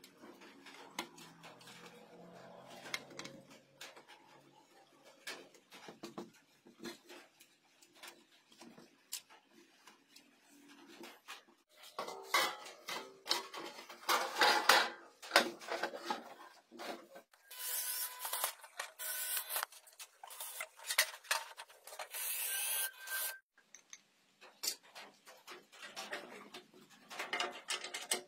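Handling noise from reassembling an inverter welding machine: small clicks and rubbing as wire connectors are plugged onto the board, then louder scraping and rattling of the sheet-metal cover sliding back over the chassis through the middle, and a few knocks near the end as a welding-cable plug is pushed into its socket.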